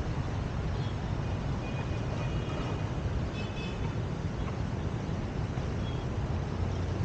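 Steady city street ambience: distant road traffic as a constant low rumble, with a few faint high tones briefly in the middle.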